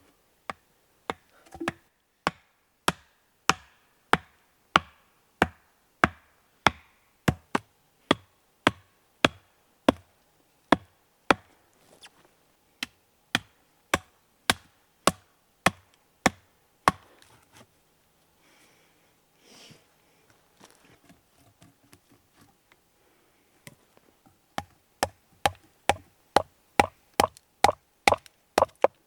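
Repeated sharp chopping strikes on wood, about one and a half a second and very regular. They stop for several seconds past the middle, then resume faster toward the end.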